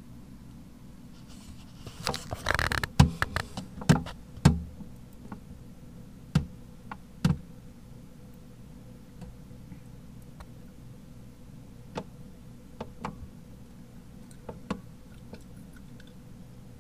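Scattered sharp knocks and clicks, with a brief rustle about two seconds in, over a low steady hum.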